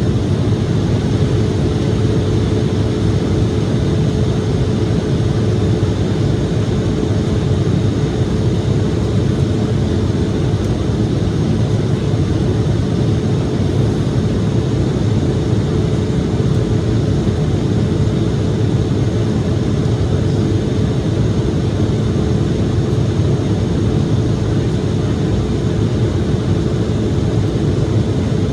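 Steady cabin noise inside an Embraer E-175 airliner in flight: the even rush of airflow and its turbofan engines, with a steady hum running through it.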